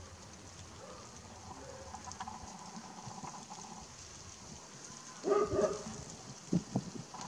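A short loud animal call about five seconds in, followed by a few soft low thumps, over a faint steady outdoor background.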